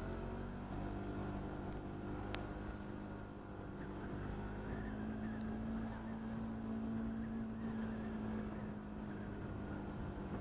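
Bajaj Pulsar 200NS single-cylinder engine running steadily at low revs while the motorcycle creeps through traffic, its note drifting slightly and strengthening past the middle. A single sharp click about two seconds in.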